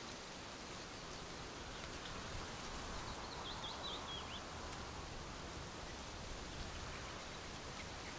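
Steady outdoor nature ambience, an even hiss, with a brief warbling bird call about three seconds in.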